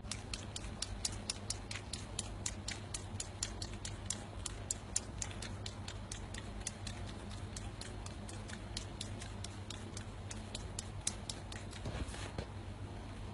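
A kitten suckling on a plush toy, making a steady run of small sharp clicks about four a second that stop shortly before the end.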